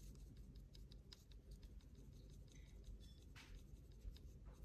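Near silence with faint small clicks and, about three and a half seconds in, a brief soft scrub: a watercolour brush working a dried dot of paint on a swatch card, paint that is slow to come up onto the brush.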